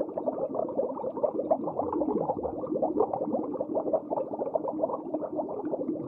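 Underwater crackling and popping: a dense, rapid patter of small clicks over a faint low hum, muffled.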